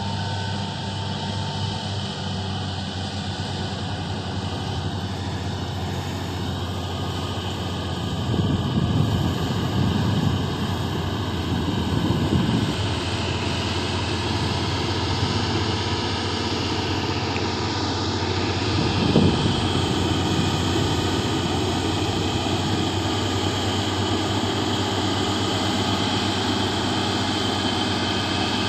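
Komatsu bulldozer's diesel engine running steadily, rising louder in a few surges partway through as it revs up.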